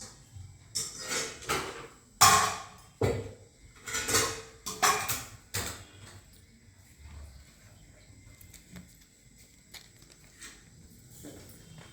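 A run of sharp knocks and clattering bursts for about five seconds, then fainter scattered taps and rustling.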